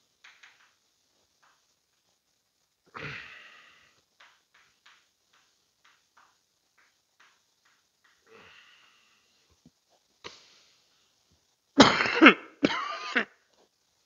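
Chalk tapping and scratching on a chalkboard as a sentence is written, in short faint strokes, with a breath about three seconds in. Near the end a man coughs twice, loudly, with voice in it.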